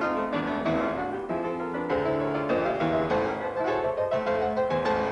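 Background piano music playing a busy, continuous run of notes.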